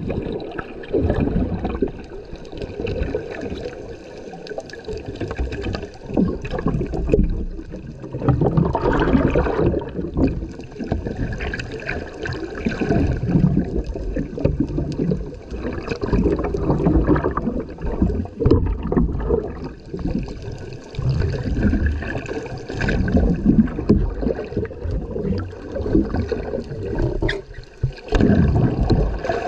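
Muffled underwater sloshing and gurgling of seawater, heard through a camera held just below the surface, rising and falling unevenly.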